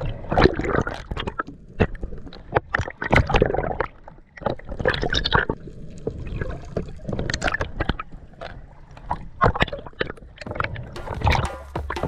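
Water splashing and gurgling around a GoPro camera at the water surface, in irregular bursts. Music with a beat comes in near the end.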